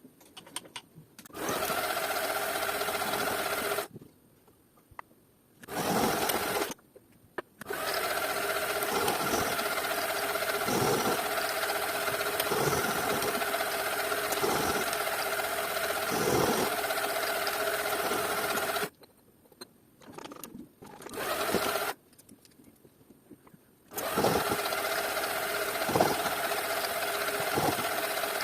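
Small electric power tool motor running with a steady whine, stopping and starting abruptly several times. While it runs, a harsher rasp comes every couple of seconds as it works the material.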